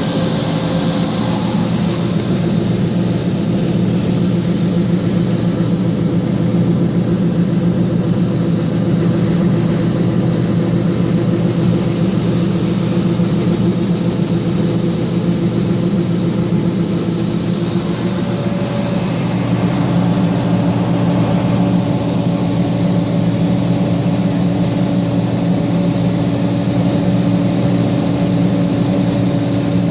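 John Deere 9550 combine's diesel engine running steadily under load while the unloading auger empties the grain tank of corn. The steady drone shifts slightly about 18 seconds in.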